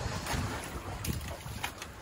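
Wind buffeting the microphone over choppy sea water slapping against a small wooden outrigger fishing boat, with a few faint knocks. No engine is running.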